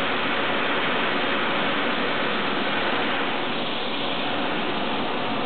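Eurocopter EC135 twin-turbine helicopter running on the ground with its rotors turning: a steady, even rushing noise, with a faint high whine joining about three seconds in.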